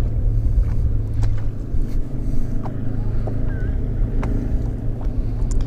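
Steady low hum of a boat motor, with a light wash of wind, and a few short, sharp clicks as a minnow is hooked onto a jig by hand.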